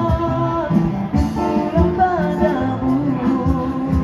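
Live busker band playing a song through a PA: a man singing into a microphone, backed by guitar, bass and percussion keeping a steady beat.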